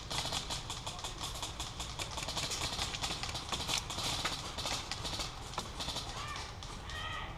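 Running footsteps with rustling, a rapid, uneven patter of crunches that eases after about five seconds; faint voices come in near the end.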